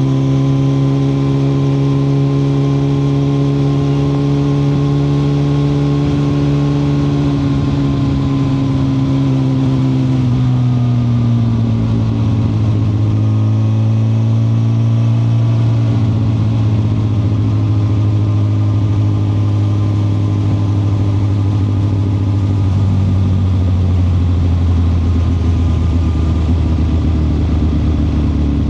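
2021 Suzuki GSX-R1000R's inline-four engine running. Its pitch eases down about ten seconds in, then it holds a steady, low note.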